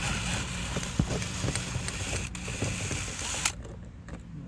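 Drill with a 7mm socket running in reverse, undoing a door-card bolt, then stopping abruptly about three and a half seconds in. A sharp knock about a second in.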